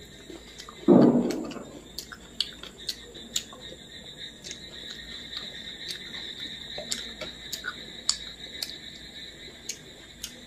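Fingers squishing and mixing rice with gravy on a plate: a string of small wet clicks and taps, with one louder burst about a second in.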